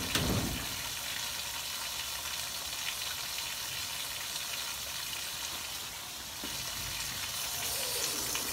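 A knock as a stiff PVC ball valve is worked open, then a steady hiss of water draining from the plasma table's water tray through the PVC drain pipe.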